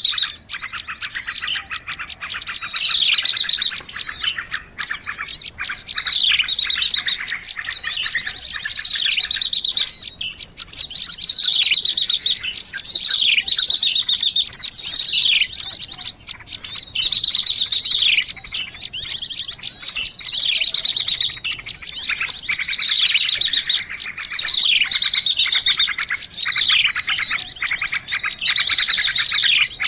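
Recorded small songbirds chirping and trilling continuously, a bird-lure call meant to draw small birds in. Dense rapid trills are mixed with repeated notes that sweep downward.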